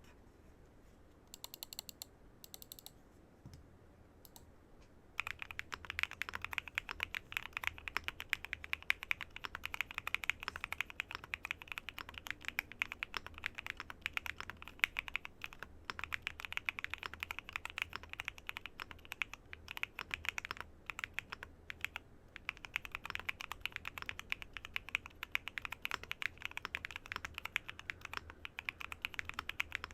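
Typing on a Swagkeys Transition Lite mechanical keyboard with Kailh BCP switches, Aifei ABS Wavez keycaps and a polycarbonate plate. A few scattered keystrokes come first, then steady, fast typing starts about five seconds in.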